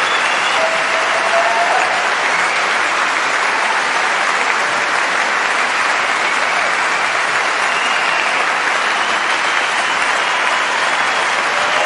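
Large audience applauding at the end of a show: dense, steady clapping with no let-up.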